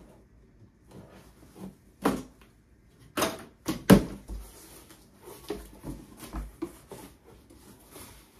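Cardboard shipping box being handled and opened by hand: a few sharp knocks and scrapes, the loudest about four seconds in, with softer rustling between.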